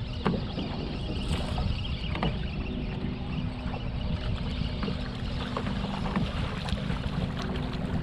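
Wind buffeting the microphone and water noise around an open bass boat, over a faint steady hum, with scattered small clicks.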